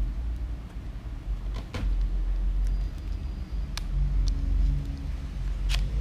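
A Topeak Alien 3 bicycle multitool being worked apart into its two halves: three sharp clicks, about two seconds apart, over a low rumble.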